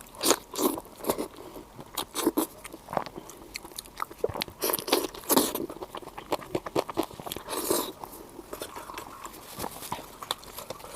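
A person eating close to the microphone: irregular wet chewing and biting, loudest in the first half.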